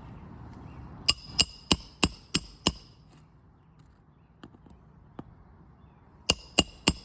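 Roofing hammer striking a metal roof snake to drive a nail in under a shingle. Two quick runs of sharp, ringing metallic blows: six at about three a second starting about a second in, then a couple of light taps, then five more near the end.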